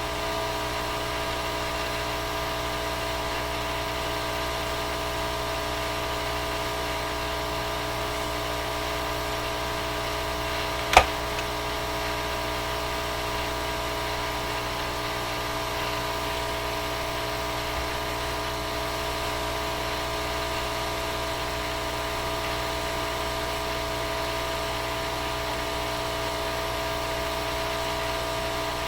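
Small fan of a soldering iron's smoke absorber running steadily, a little bit noisy, with several steady tones; one sharp click partway through.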